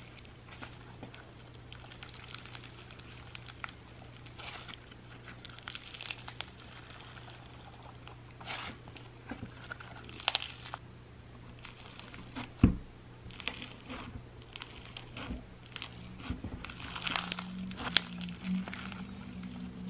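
Floam (stretchy blue slime packed with foam beads) being squeezed and stretched by hand, the beads crunching and crackling irregularly. There is one sharper, louder crack about two-thirds of the way through.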